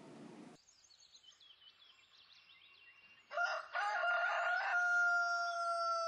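Rooster crowing: one long crow starting about halfway in, rising in steps, then held steady and dropping off at the end. Faint high chirping comes before it.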